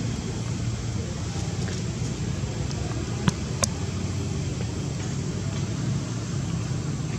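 Steady low outdoor rumble, with two short sharp clicks a little past the middle.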